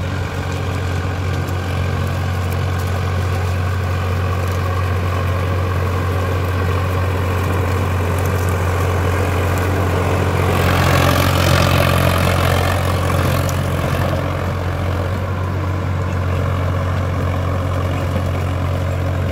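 Sonalika tractor's diesel engine running steadily under load as it drives a rotavator through dry soil. The sound swells as the tractor passes close about halfway through, then eases as it pulls away.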